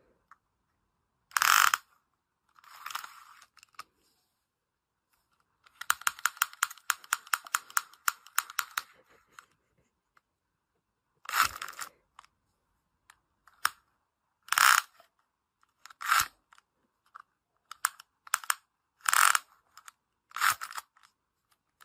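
Retractable tape measure being worked: a run of rapid clicks for about three seconds as the tape is drawn out, and a string of short, sharp zips and snaps as it is pulled and let back in.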